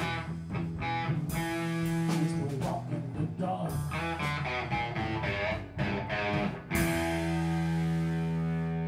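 Live rock band playing, electric guitar lines over drums, closing about seven seconds in on a cymbal-crashed final chord left to ring out.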